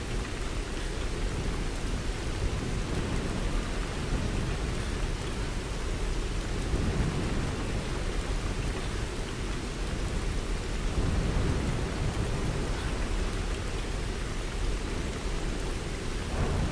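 Steady heavy rain: a dense, even hiss of falling rain with a deep low rumble underneath.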